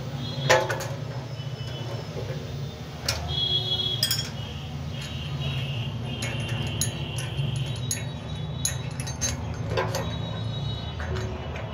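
Metal tools and parts clinking and tapping while a cut-off machine is being taken apart, with a sharp knock about half a second in and several brief metallic rings, over a steady low hum.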